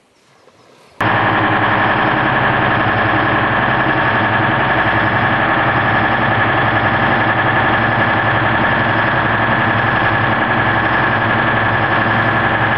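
Motor yacht's inboard engine idling steadily; it comes in suddenly about a second in and runs loud and even.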